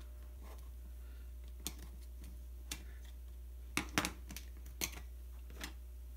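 Scattered light clicks and taps of small tools and plastic parts being handled on a work mat while a thermometer's plastic case and circuit board are taken apart with small screwdrivers. A cluster of sharper clicks comes about four seconds in.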